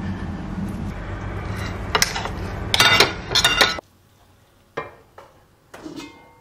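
Metal tongs clinking and scraping against a pan and its stainless steel lid as food is served, over a steady hum. A cluster of sharp clinks comes about three seconds in. The sound then drops away suddenly, leaving a few light knocks and a short metallic ring near the end.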